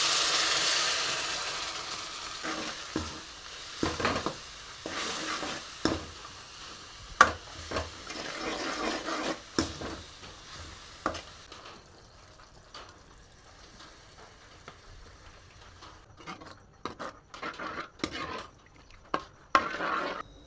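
Water poured onto hot oil and spices in a kadai sizzles loudly at first, the hiss dying away over a few seconds. Then a steel ladle stirs and scrapes the liquid, knocking now and then against the pan.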